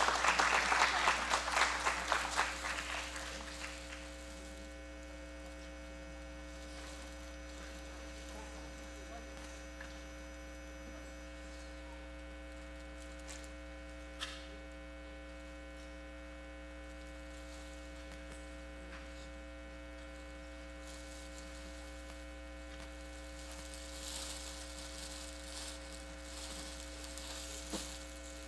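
Audience applause dying away over the first few seconds, leaving a steady electrical mains hum from the hall's sound system with faint room noise. A single sharp click about halfway through.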